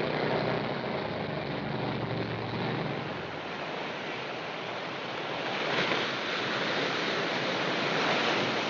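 Ocean surf breaking and washing ashore, a steady rush that swells about six seconds in and again near the end. A low bus engine rumble sits under it at first and fades out within the first few seconds.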